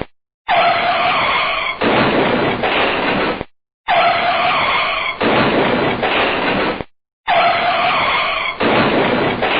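A car braking hard, its tyres skidding in a loud, noisy screech. The same clip of about three seconds plays three times, with short breaks of silence between.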